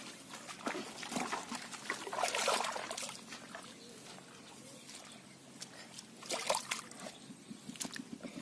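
Hands sloshing and groping through shallow muddy water in a small hole, with irregular splashes and dribbles, busiest in the first few seconds and again about two-thirds of the way through.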